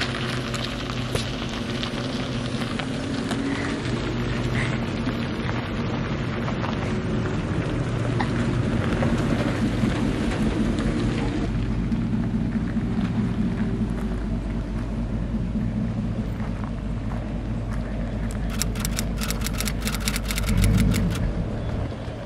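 Lifted Jeep Wrangler JL and Ford F-150 pickup driving slowly along a dirt road, engines running steadily with tyres crunching on gravel. A quick run of rapid clicks and a brief louder rumble come near the end.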